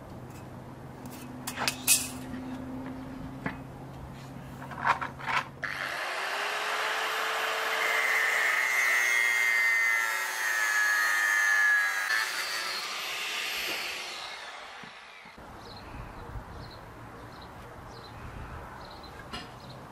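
A few sharp taps on the work, then an angle grinder spins up and cuts through a thin metal rod for about nine seconds, its whine sagging slightly under load before it is switched off and winds down. A few small clicks follow near the end.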